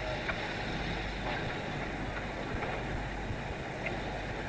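Steady hiss and low rumble from around a steam locomotive standing in steam, heard from an old reel-to-reel tape recording with a low hum underneath and a few faint clicks.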